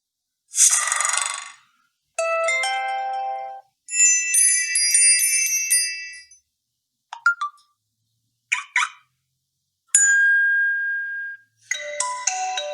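Preset notification tones of an Honor 7A smartphone played one after another. About seven short chimes, jingles and blips, each lasting under a second to about two seconds, are separated by moments of silence.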